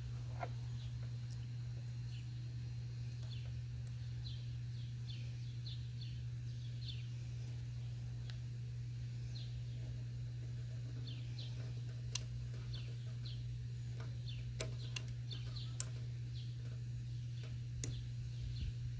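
Birds chirping in many short, falling chirps over a steady low hum. A few sharp clicks in the second half come from pliers and the plastic air line being handled.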